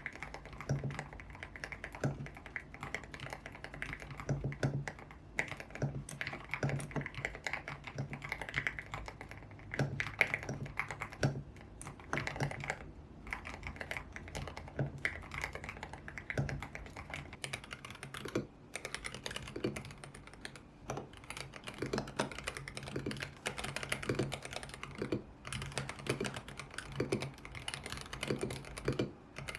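Typing on a YUNZII X75 Pro mechanical keyboard with Kaith Jellyfish switches. The first part is played with solid keycaps, tape-modded and lubed; after a short pause about 19 seconds in, it continues on the keyboard's original transparent keycaps.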